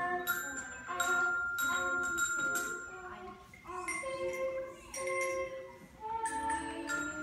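Small children's glockenspiels struck with mallets by several young players together, picking out a simple tune of separate notes, roughly one a second, each note ringing on after the strike.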